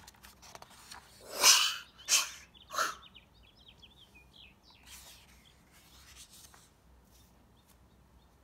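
Pages of a hardcover picture book being turned: three quick paper swishes, with a softer one later. Between them comes a brief run of faint, high chirps.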